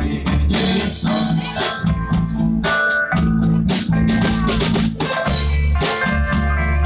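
Live rock band playing a cover song: a steady drum-kit beat over loud bass, with guitar and other instruments.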